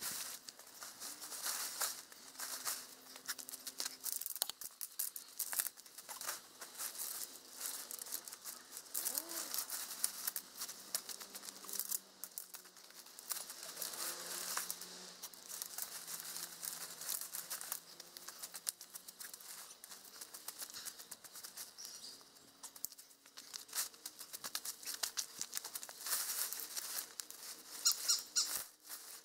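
Nylon fabric of a Coleman Tough Dome 2725 tent rustling and crinkling in irregular strokes as it is unfolded and smoothed out over the ground sheet, with light scrapes and knocks. Near the end a tent pole is fed along the fabric.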